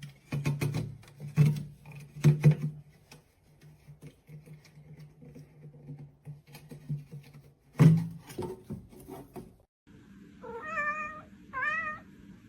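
A cat meowing twice near the end, each meow wavering in pitch. Before that there is a low steady hum with scattered clicks and knocks.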